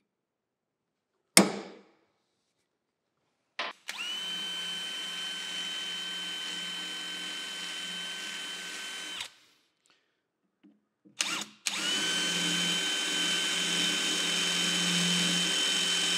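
One sharp metal strike about a second in, a center punch marking the steel shaft, then an electric hand drill running twice, about five seconds each, with a steady whine, drilling small dimples into the bandsaw's steel pulley shaft for the set screws to seat in.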